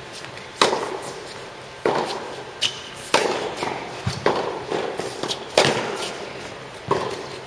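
Tennis rally: a ball struck by rackets six times, about a second and a quarter apart, with softer ball bounces between the hits. Each hit echoes in an indoor tennis hall.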